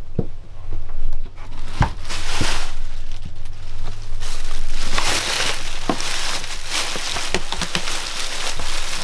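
Plastic trash bag crinkling and rustling as an RV toilet is set down into it and the bag is pulled up around it, with a few knocks from the toilet being handled.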